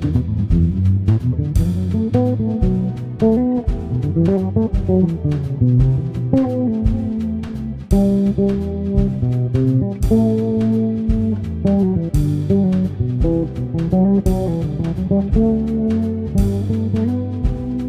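Instrumental background music: a plucked guitar melody over a bass line, with a sharp stroke about every two seconds.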